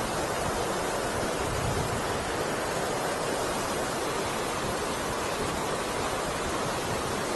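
Steady rush of river water pouring over a weir, an even roar with no breaks.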